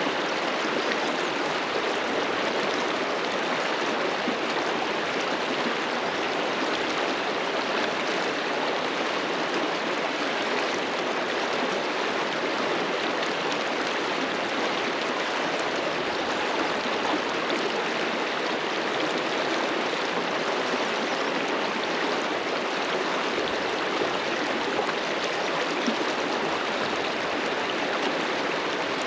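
River water rushing and splashing over rocks, a steady, even rush.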